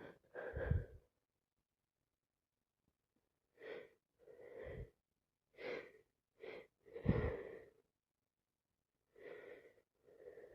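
Short, breathy bursts from a person with a bad cold: gasping in-breaths and sneezes, the loudest about seven seconds in.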